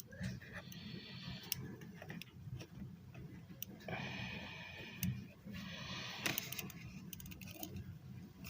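Small, sharp clicks and taps of model kit parts being handled and pressed into place while gluing, scattered irregularly, with a short cluster of quick ticks near the end, over a low steady hum.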